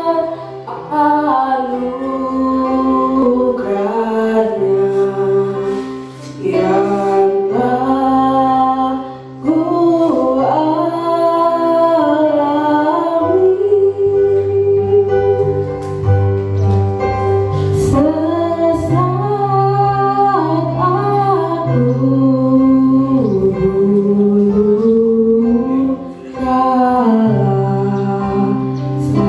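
A woman's solo voice singing a slow melody into a microphone, holding long notes and gliding between them, with short breaks for breath. Sustained low accompaniment notes change step by step underneath.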